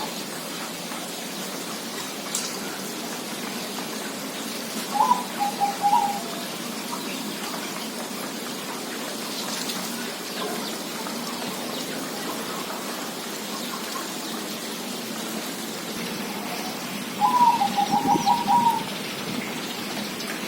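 Zebra dove (perkutut) cooing twice, the phrases about twelve seconds apart. Each is a first note followed by a quick run of short, slightly lower coos, over a steady hiss.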